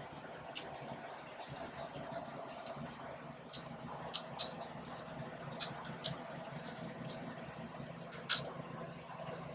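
Typing on a Logitech K380 Bluetooth keyboard: soft, irregular key clicks at an uneven pace, with a faint steady hum underneath.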